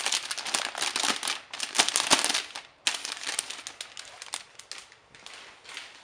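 Thin clear plastic bag crinkling and rustling in the hands as a keyboard in its case is pulled out of it. The crinkling is loud for the first three seconds, then fainter and sparser until it dies away.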